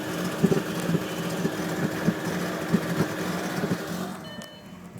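Audi A4 1.8T turbocharged four-cylinder engine running rough with an irregular stumble, a terrible gargling noise: the engine is misfiring. The sound drops in level about four seconds in.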